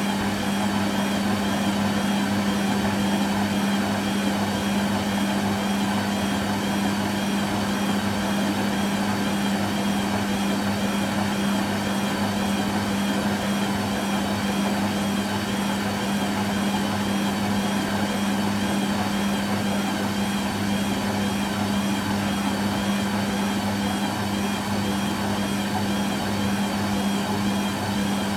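Hoover Quattro AE130 washing machine running on a rinse-and-spin programme: a steady mechanical hum with one strong low tone, unchanging throughout.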